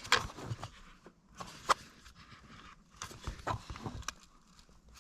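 Hands working pedal parts in a car footwell: a string of irregular clicks, knocks and rustles as parts are handled and slid into place, with one sharp click about a third of the way in and a burst of knocks past the middle.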